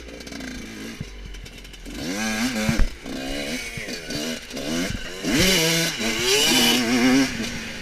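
Enduro dirt-bike engine revving up and down repeatedly, with sharp rises in pitch as the throttle is opened and loudest in the second half.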